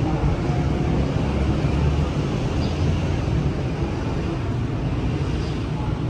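Steady low rumble of city traffic heard from an open courtyard.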